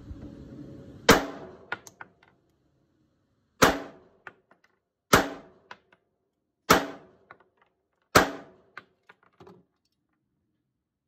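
Five pistol shots from a CZ Shadow 2 9mm firing homemade cast lead hollow-point bullets. The first two are about two and a half seconds apart, the rest about a second and a half apart. Each shot is followed by a few fainter clicks.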